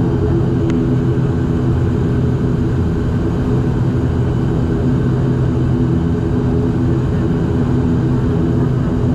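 Turboprop airliner's engines and propellers running, heard from inside the cabin: a steady drone with several even hum tones underneath.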